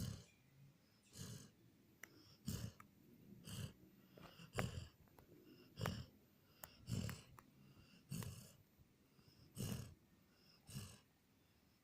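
Border collie snoring in its sleep: short, rhythmic snoring breaths about once a second, around ten in all.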